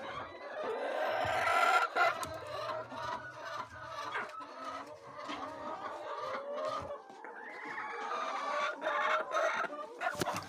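A flock of laying hens clucking, many calls overlapping, with scattered sharp clicks.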